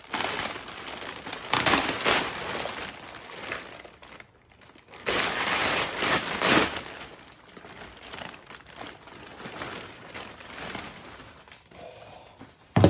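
Plastic vacuum-bagging film crinkling and rustling as it is handled around a carbon-fibre mudguard layup, in irregular bursts, loudest about two seconds in and again from five to seven seconds in.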